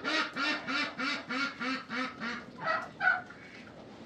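A rapid run of about ten short animal calls, some five a second, then two more after a brief pause.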